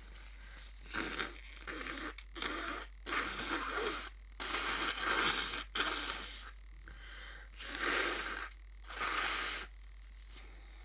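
A person with hay fever sniffing and breathing hard through a congested, snotty nose: a run of about eight noisy sniffs and breaths, the last two longer and stronger.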